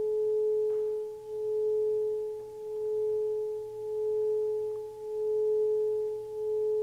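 Metal singing bowl sung by circling a wooden mallet around its rim: one steady sustained tone with a fainter higher overtone, wavering in loudness a little slower than once a second.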